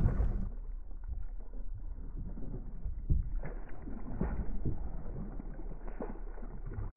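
Water sloshing against a plastic kayak hull, with scattered light knocks. The sound is muffled.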